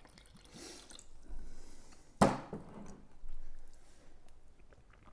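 Eating at a table: soft wet chewing and spoon sounds, with one sharp clack of a utensil or dish against the table or bowl about two seconds in.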